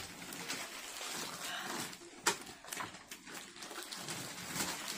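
Rustling and crinkling of gift wrapping paper and book pages being handled, with a sharp click about two seconds in.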